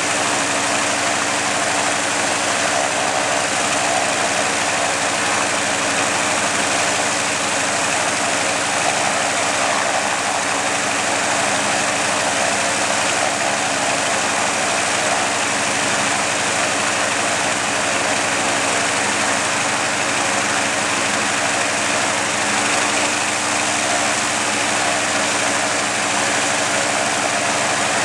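Antonov An-2's nine-cylinder Shvetsov ASh-62 radial engine and propeller idling steadily, with no change in speed.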